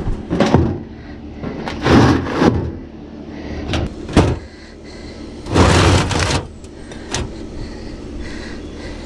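Concrete blocks being handled and set in place on a concrete slab: several gritty scrapes and knocks, with a sharp knock a little after four seconds and the longest scrape, about a second long, soon after.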